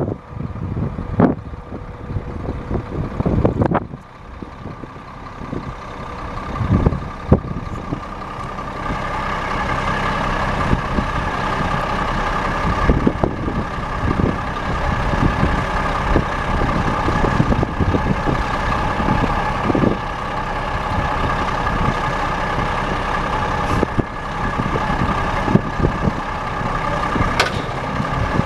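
Cummins 10.8 L straight-six diesel of a 1995 Ford LT9000 mixer truck running. Uneven, gusty noise for the first several seconds, then from about nine seconds in a steadier, louder running sound with a high whine.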